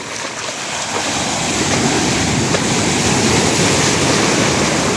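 Ocean surf: a breaking wave's whitewater rushing in through shallow water, swelling about a second in and easing off near the end.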